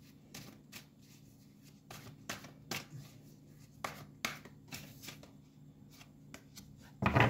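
A deck of tarot cards being shuffled by hand: soft, irregular clicks and slaps of the cards, with a brief louder sound near the end.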